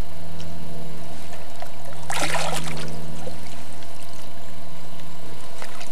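Lake water splashing as a carp sling is worked in the shallows, with one louder splash about two seconds in. A steady low hum runs underneath.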